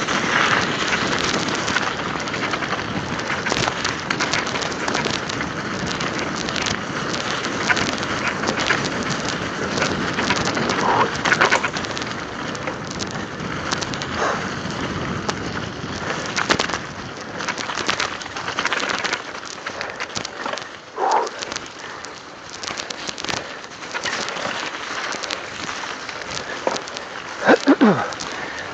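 Mountain bike tyres rolling over a slushy, icy road: a steady crackling hiss with many small clicks and rattles. There are a few short squeaks, and near the end a loud one that falls in pitch.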